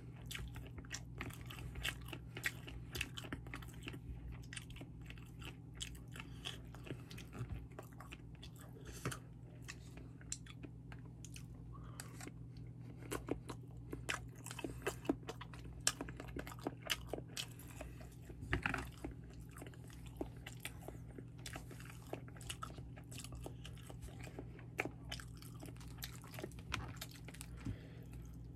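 A person chewing sushi, with many small mouth clicks throughout, over a steady low hum.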